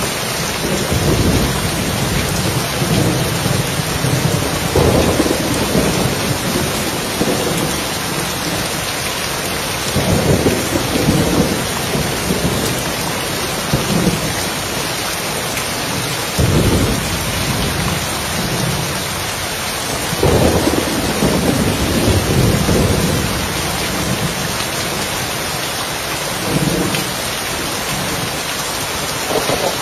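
Steady rain on a roof, with thunder rumbling low in repeated swells every few seconds.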